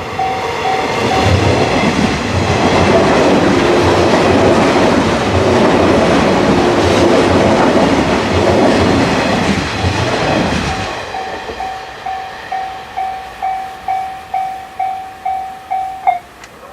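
A Japanese railway level-crossing alarm rings at about two strokes a second while a 583-series electric train passes, its wheels clacking rhythmically over the rail joints for about nine seconds. After the train has gone, the alarm rings on alone and cuts off near the end.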